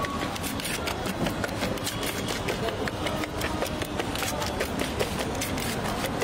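Busy street ambience: indistinct background voices and a steady noisy hum, with many small clicks and clatters throughout.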